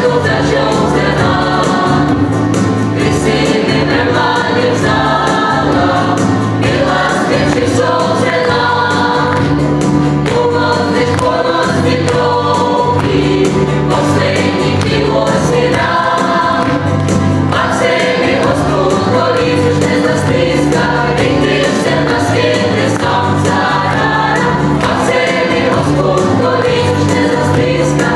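Mixed choir of men and women singing together, loud and without a break.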